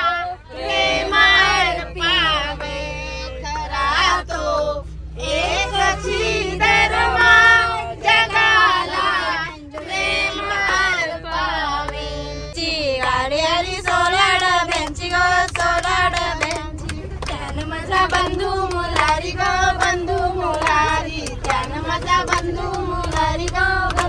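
People singing songs together in an antakshari game, unaccompanied voices, over the low rumble of a moving vehicle.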